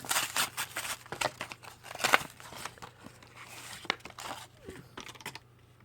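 Crinkly plastic wrapper of a card pack being torn open and handled: a run of crackles and rips, the loudest rip about two seconds in, thinning out near the end.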